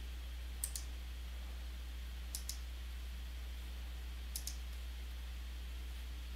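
Computer mouse clicked three times about two seconds apart, each a quick double tick of button press and release, over a steady low hum.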